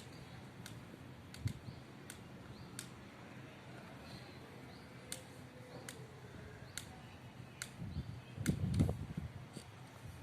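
Scattered, irregular sharp clicks with a few dull knocks, the loudest cluster of knocks near the end, over a faint steady low hum.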